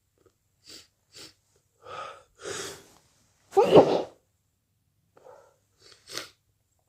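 A person with a cold sneezing once, loudly, about halfway in. The sneeze follows two short breaths and two longer gasping in-breaths that build up to it, and a few short, quieter breaths come after it.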